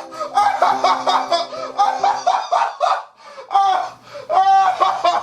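A man laughing hard in quick repeated bursts, over background music with held notes that fades out about halfway through.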